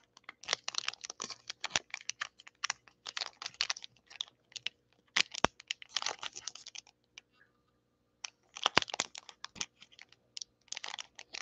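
Foil Pokémon booster pack wrapper crinkling in the hands as fingers pick and pull at its sealed top edge, trying to tear it open: runs of short crackles, with a pause of about a second past the middle.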